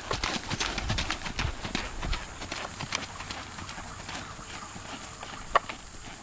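Hoofbeats of a red dun Quarter Horse gelding moving under saddle: a quick run of thuds and clicks that grows quieter and sparser as the horse moves away. A single sharp click stands out near the end.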